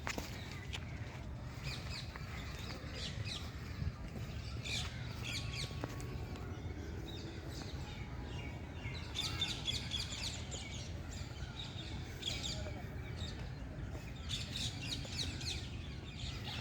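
Several birds chirping and calling in quick high bursts, strongest about two-thirds of the way in and again near the end, over a steady low rumble.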